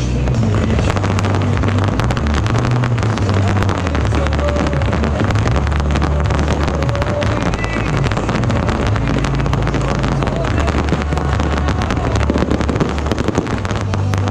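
Dense fireworks barrage: a continuous rapid crackle of many small pops and bangs over a steady low rumble.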